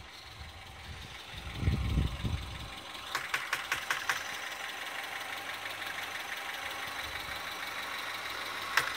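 2006 Lincoln Zephyr's 3.0-litre V6 being started: a low rumble swells as it catches about a second and a half in, then it settles into a steady idle. Quick runs of light ticks come a few seconds in and again near the end.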